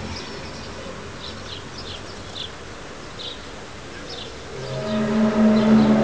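Eerie audio recording of the kind passed around as the 'hum of the Earth' from the Kola Superdeep Borehole: a hissing background dotted with short high chirps, then about three-quarters of the way through a low, steady drone of several stacked pitches swells in and grows loud.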